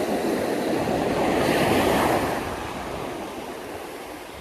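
Ocean surf: a wave breaking on the beach, swelling to a peak about two seconds in and then fading as it washes back.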